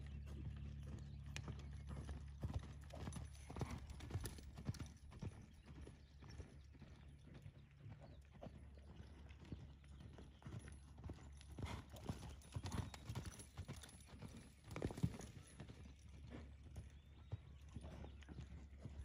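Hoofbeats of a sorrel horse loping on a dirt arena: a running series of dull thuds, with one sharper strike about fifteen seconds in, over a steady low hum.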